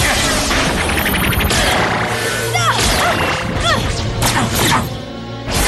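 Cartoon fight sound effects: magical energy blasts zapping and crashing against a crystal body, with several short falling zaps, over dramatic action music.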